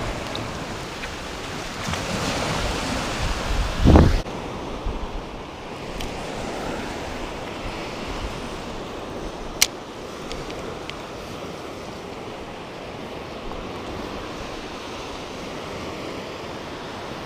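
Ocean surf washing onto the beach, with wind buffeting the microphone. A louder surge about two seconds in ends in a low thump around four seconds, and a single sharp click comes near the middle.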